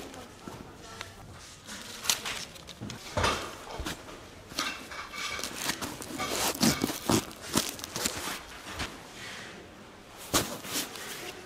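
Nylon tent fabric rustling and crinkling as a rolled tent is handled and packed into its bag, with irregular sharp crinkles and soft knocks.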